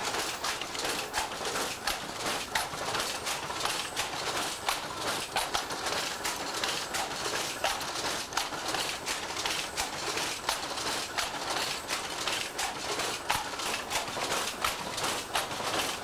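Power loom weaving a double-cloth Welsh tapestry bedspread, running at speed. It makes a dense, steady clatter of knocks as the wooden shuttles are thrown across from the shuttle box and the shafts rise and fall.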